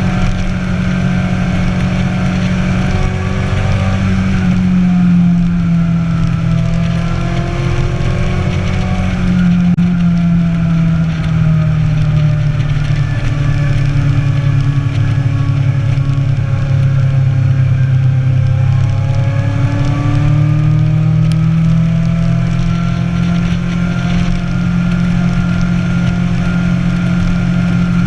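Motorcycle engine running while riding, a steady drone whose pitch drops about ten seconds in and climbs back around twenty seconds as the revs fall and rise.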